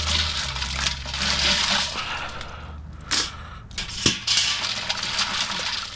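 A hand rummaging through ice and water in a stainless steel pot: ice crunching and sloshing, with cooked Dungeness crab shells knocking against each other and the pot as they are lifted out. There are a few sharper knocks about three and four seconds in, and a low steady hum underneath through the first half.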